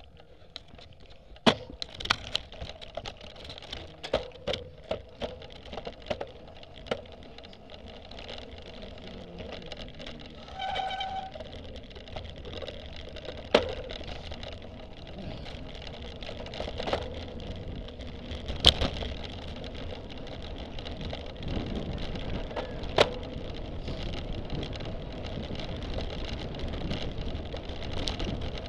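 A bicycle ridden fast over bumpy grass, picked up by a camera mounted on the bike: steady wind and tyre noise with frequent sharp knocks and rattles as the bike and camera mount jolt over the ground. A short pitched tone sounds once, about eleven seconds in.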